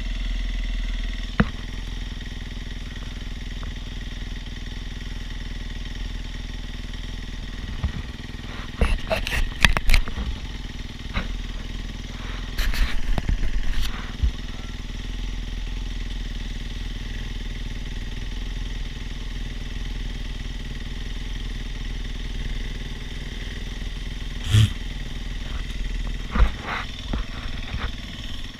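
Dirt bike engines idling steadily, with no revving. Bursts of brief clattering knocks come about a third of the way in, and a single sharp knock comes near the end.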